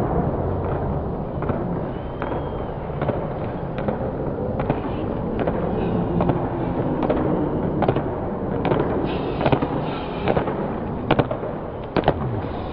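Crowd noise echoing in an indoor sports hall during a sprint race, with scattered sharp slaps and knocks that grow more frequent in the second half.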